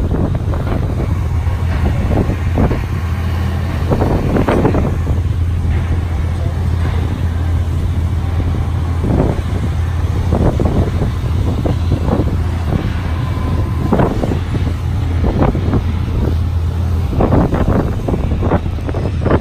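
Steady low engine hum of a moving vehicle, with irregular gusts of wind buffeting the microphone.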